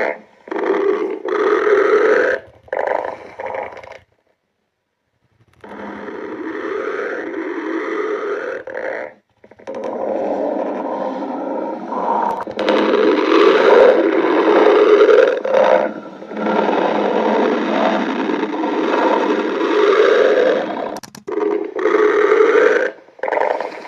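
A human stomach growling loudly in long, drawn-out growls with short breaks between them, and one full pause of about a second and a half about four seconds in.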